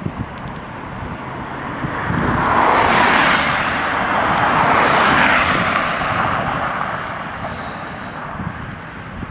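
A car passing close by and driving away, its tyre and engine noise swelling to a peak and then fading as it recedes.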